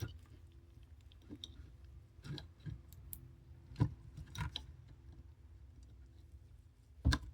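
Scattered faint clicks and knocks of small objects being handled, with a few louder taps about four seconds in and near the end, over a low steady hum.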